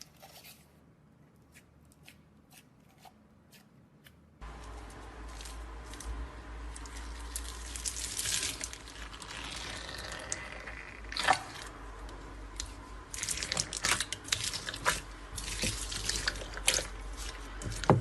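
Slime being squeezed and stretched by hand: wet, sticky crackles and pops, only a few faint clicks at first, then dense and louder from about four seconds in, over a steady low hum.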